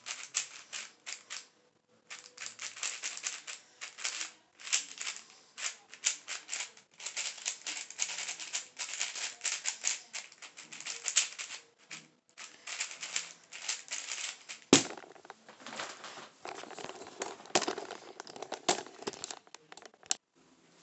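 Plastic layers of an MGC 4x4 speedcube clicking and clacking in rapid runs of turns, with short pauses between runs. A single sharp knock comes about fifteen seconds in.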